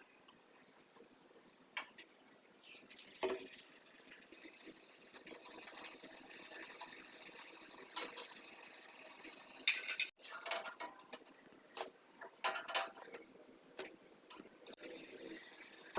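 Kitchen cooking sounds: a metal spoon or ladle clicking and clinking against a pan or bowl. A hiss sets in about three seconds in and carries on under the clinks, typical of potato pakoras frying in hot oil.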